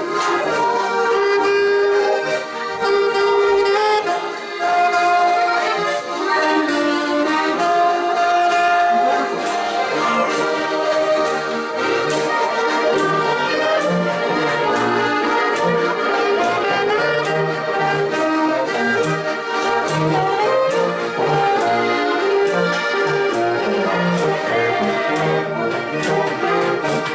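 Live Austrian folk music: several Steirische Harmonikas (diatonic button accordions) playing with a clarinet, a saxophone and a brass horn. A pulsing bass line joins about halfway through.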